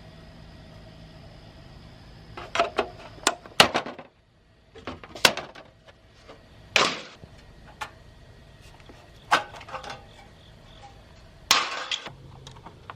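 Monitor parts being handled during disassembly: scattered clicks, knocks and clatter of plastic and metal pieces, with a couple of short scrapes.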